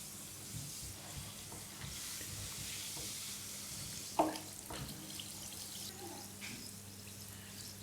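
Bomb Cosmetics bath bomb fizzing as it dissolves in bath water, a steady fine hiss. A single sharp click about four seconds in.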